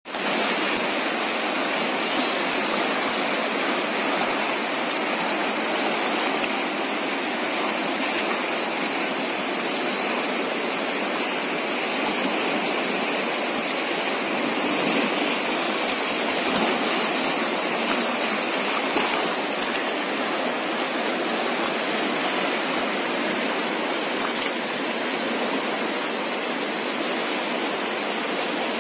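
Steady rushing of a fast, flooded river, its muddy water churning over rapids and rocks.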